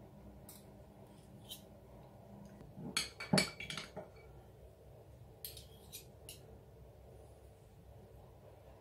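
Metal spoons clinking against a glass jar and against each other as apricot jam is scooped out and pushed off into pastry cases in a metal tart tray. Scattered short clinks come in small groups, the loudest about three and a half seconds in.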